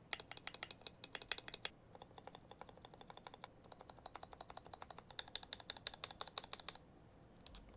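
Typing on a Tester 68 mechanical keyboard with Gateron Milky Yellow Pro linear switches, lubed with Krytox 205g0, under PBT keycaps. A fast run of keystrokes goes lighter in the middle, picks up again, then stops near the end.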